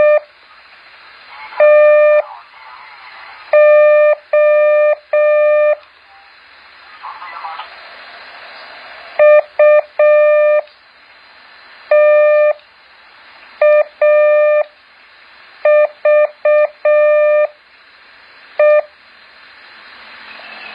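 Morse code practice characters: one steady beeping tone keyed on and off in short and long elements. About eight characters come one every second or two, with a faint hiss in the gaps between them.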